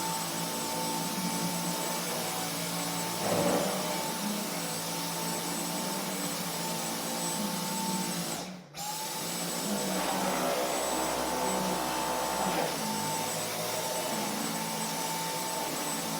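Household vacuum cleaner running steadily with a constant high whine over its motor and airflow noise. It drops out for a split second about halfway through and comes straight back.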